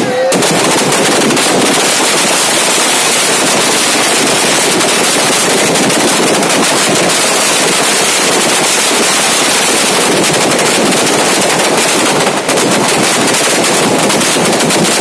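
Firecrackers packed inside a burning Ravana effigy going off in a dense, continuous rapid crackle of bangs, with a brief lull about twelve seconds in.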